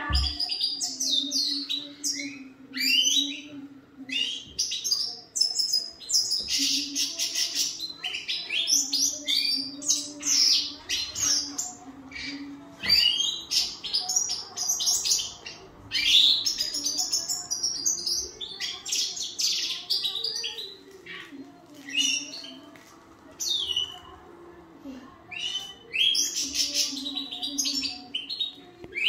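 Goldfinch of the large 'major' (Siberian) form singing its chattering song: long runs of rapid, twittering and trilling notes, with a brief lull about three quarters of the way through.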